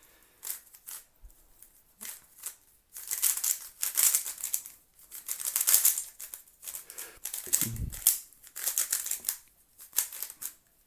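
YJ YuLong V2 M magnetic 3x3 speed cube being turned in rapid bursts of clicky, scratchy layer turns. The cube is fresh out of the box, unlubricated, dry and a little tight. A dull bump about eight seconds in.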